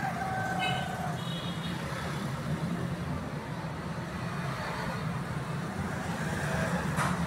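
Steady low mechanical rumble, like a running engine, continuing throughout, with a brief faint high tone about a second in and a sharp click near the end.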